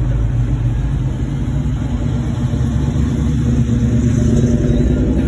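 Classic cars' engines rumbling low and steady as they drive slowly past one after another, growing a little louder near the end.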